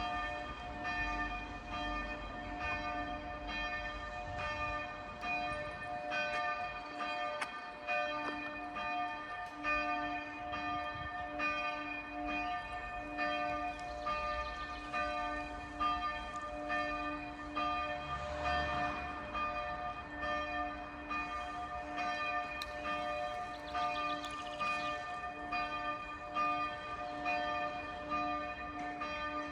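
Church bells of Bad Doberan Minster ringing a full peal: several bells struck over and over, their strokes overlapping and their tones lingering in one continuous ringing.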